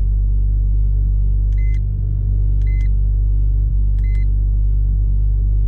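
Porsche 911 GT3's flat-six engine idling steadily, heard from inside the cabin. Over it, three short electronic beeps from the iCarSoft POR v2.0 OBD2 scanner's keys as they are pressed.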